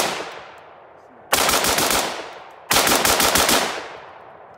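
Bushmaster AR-15 rifle fired from the hip: one shot, then two short rapid strings of several shots each as it is bump-fired. The strings die out after a few rounds: the bump fire is not running the way it normally does, which the shooter puts down to the 60-round magazine jamming.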